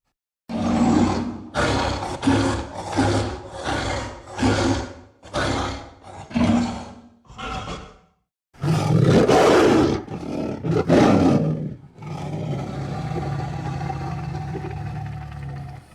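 White tiger roaring: a run of about nine short roars that grow fainter, then after a brief silence two long, loud roars, followed by a steady low growl.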